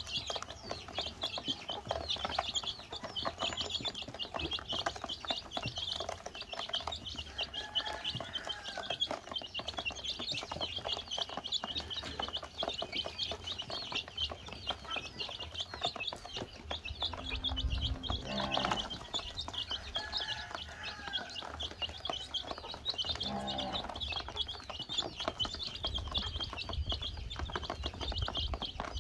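A brood of baby chicks peeping continuously, a dense chorus of short, high cheeps, with quick taps of beaks pecking feed off a plastic basin. A few lower calls stand out now and then.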